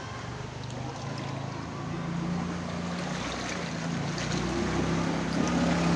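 An engine running with a low, steady hum that grows gradually louder, over a constant hiss.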